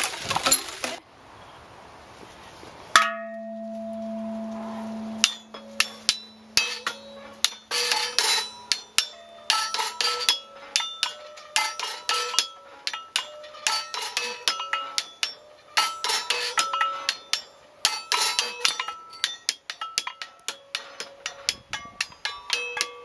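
Hanging metal brake rotors and brake drums on a percussion frame, struck with sticks: a fast, uneven run of clanging metallic hits, each leaving a short ringing note at one of several pitches. Near the start there is a brief clatter, then one deep note that hums for about two seconds.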